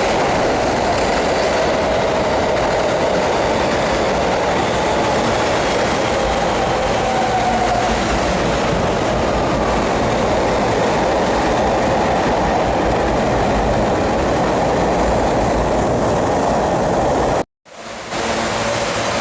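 New York City subway train on the BMT Broadway Line running loudly along the station platform, wheels clattering on the rails with a faint whine over the noise. The sound cuts off abruptly near the end, and a steadier hum takes over.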